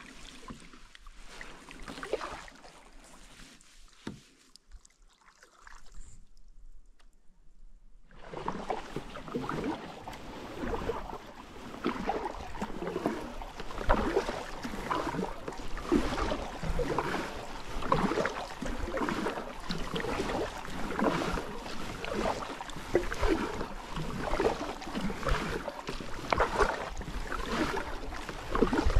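Kayak paddle strokes: the blades dip and pull through the water and drip at the end of each stroke, about one stroke a second. The sound is faint and patchy at first, then louder and steady from about eight seconds in.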